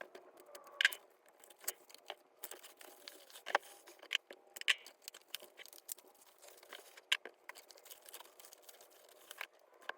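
Magazines being handled: irregular paper rustling with scattered sharp taps and clicks as the copies are moved and set out.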